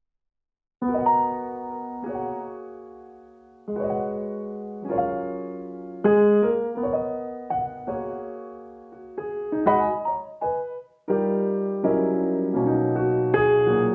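Background piano music: slow chords struck every second or two and left to ring and fade, starting about a second in after a brief silence.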